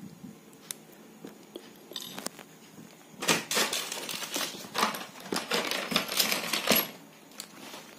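Handling noises from the earphone, the cloth and the tools: a few faint clicks, then about three seconds in a dense run of rustling, crackling and small knocks lasting some four seconds before it quiets again.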